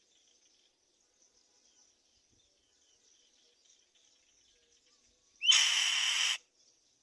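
A black-winged kite gives one harsh screech lasting about a second, near the end, over a faint, steady, high insect chirring.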